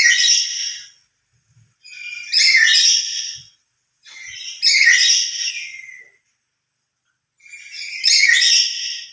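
Black-capped lory giving loud, shrill calls, four in all, each about a second long with gaps of a second or more between them.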